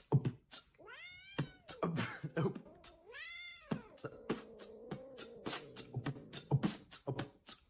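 Domestic cat meowing: two long meows that rise and fall in pitch, then a lower, drawn-out call. Sharp clicks are scattered throughout.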